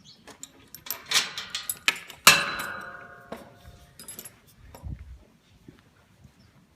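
A metal gate latch rattling and clicking, then a sharp metallic clang about two seconds in that rings on for about a second as it fades; a dull low thump follows a couple of seconds later.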